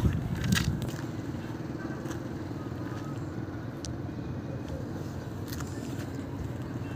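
Steady low hum of a running motor vehicle engine, with a short louder bump of noise right at the start and a few faint clicks.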